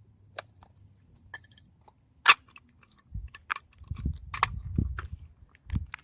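Hard plastic toy egg package being handled: scattered clicks, one sharp snap a little over two seconds in, then crinkling and low bumps of handling.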